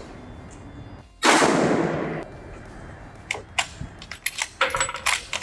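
A single rifle shot about a second in, ringing on for about a second as it dies away, followed by a quick run of sharp clicks and clacks.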